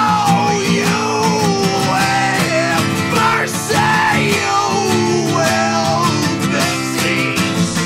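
Acoustic guitar strumming a steady rhythm under a high melody line that glides up and down, as an instrumental passage of a folk-rock song.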